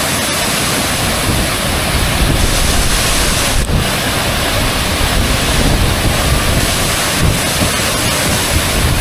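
Waterfall rushing nearby: a loud, steady roar of falling water, with wind buffeting the microphone and adding an uneven low rumble.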